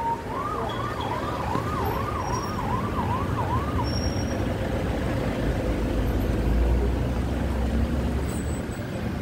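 Vehicle siren on a yelp setting, a fast rising-and-falling wail about two cycles a second, that stops about four seconds in. A car's engine and road rumble, heard from inside the car, carries on and grows louder in the middle.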